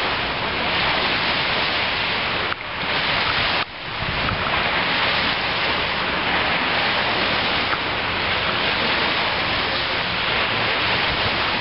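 Steady rushing of sea surf washing onto a sandy beach, dipping briefly twice in the first few seconds.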